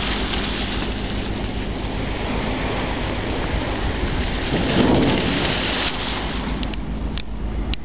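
Icebreaker's bow crushing and grinding through sea ice: a continuous rumbling crackle that swells loudest about five seconds in, over a low steady hum from the ship. A few sharp cracks come near the end.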